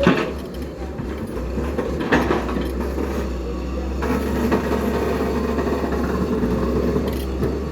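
Heavy diesel machinery running steadily, with sharp knocks at the start and again about two seconds in.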